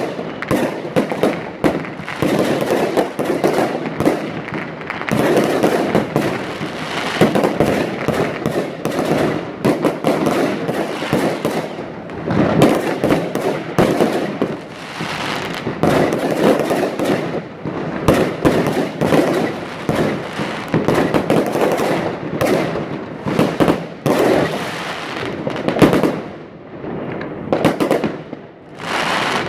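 Fireworks going off all around: aerial shells and firecrackers bursting in a dense, continuous crackle of bangs and pops, easing briefly near the end.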